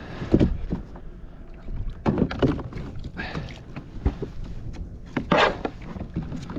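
Water splashing and sloshing against a plastic fishing kayak's hull in several short bursts, over a low, steady rumble of wind on the microphone.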